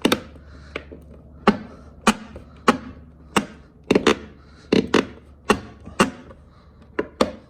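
Plastic mirror-housing clips being pressed and tapped home: a dozen or so sharp plastic clicks and taps, irregular, about one or two a second, as the part is pushed to make its four clips snap in.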